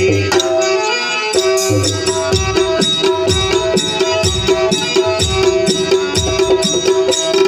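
Instrumental break in Kannada folk-theatre music between sung lines: sustained melodic notes over a steady drum rhythm.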